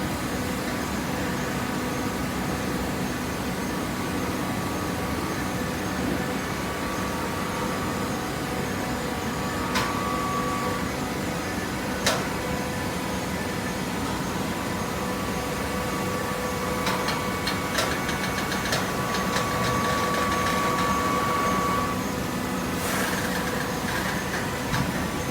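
Hydraulic cardboard baler running: a steady motor and pump hum, with a higher whine through much of the second half that stops a few seconds before the end, and a few sharp clicks.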